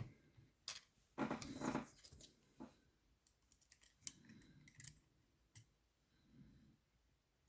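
Small sharp metal clicks and a short scrape just after the first second, as a homemade lever-lock pick and tension tool are worked into a 5-lever curtained mortise lock.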